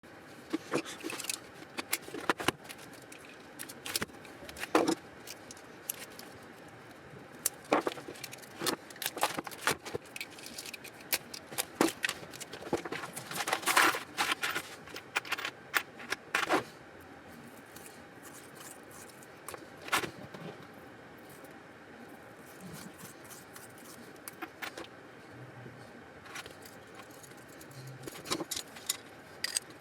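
Small metal tools being handled, clinking and clattering in many sharp, irregular clicks, busiest in the first half and sparser later.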